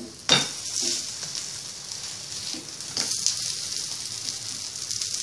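Potato patties frying in shallow oil on a flat pan, a steady sizzle. A sharp knock of the spatula against the pan just after the start, as the patties are turned over, and a smaller knock about three seconds in.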